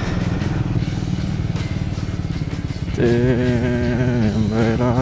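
Motorcycle engine running steadily at low speed under way. About three seconds in, a pitched voice that wavers in pitch, like humming or singing, comes in over it.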